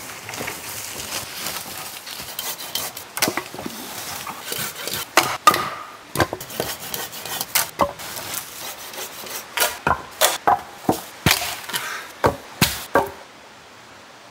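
Dry dead wood being handled for firewood: at first branches rustle and drag through forest litter, then comes a run of sharp wooden knocks and cracks as lengths are chopped with a blade. The knocks stop shortly before the end, leaving only faint background hiss.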